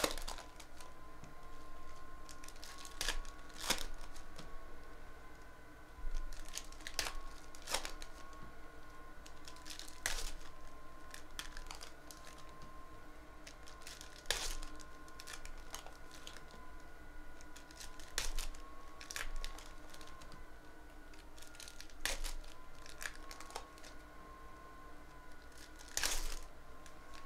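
Plastic foil wrappers of basketball trading-card packs being torn open and crinkled by hand, in short sharp crackles every second or two.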